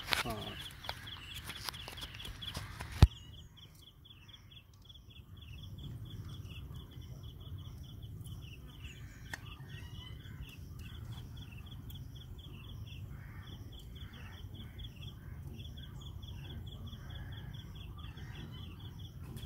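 Rustling handling noise that ends in a sharp click about three seconds in, then a steady, evenly repeated high chirping, a few chirps a second.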